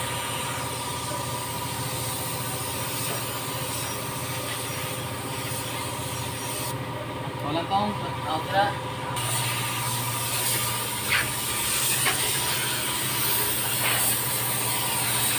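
Gravity-feed air spray gun hissing as it sprays paint onto a car's fender, over a steady machine hum. The spray stops for a couple of seconds about seven seconds in, then starts again.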